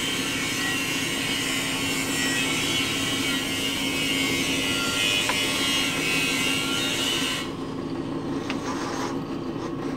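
Drill press running with a steady motor hum under a hiss; the hiss cuts off suddenly about seven and a half seconds in while the hum goes on, with a couple of light clicks as a bit is fitted in the chuck.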